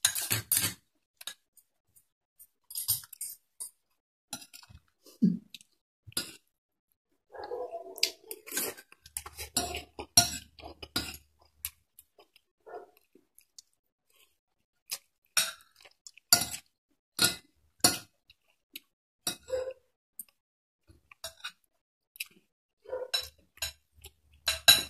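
Metal spoon and fork clinking and scraping against a plate and bowl in scattered, irregular taps while eating, with soft chewing in between.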